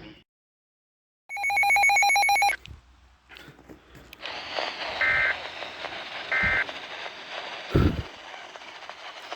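Weather radio receiver audio: a loud pulsed electronic alert tone for about a second, then radio static hiss with two short beeps about a second apart and a dull thump near the end.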